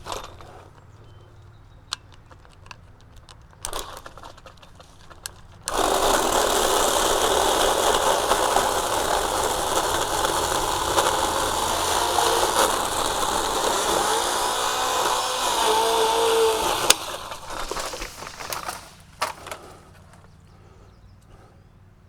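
Powered pole saw running and cutting into a broken tree limb for about eleven seconds, starting and stopping abruptly, with a few light clicks and rustles before it.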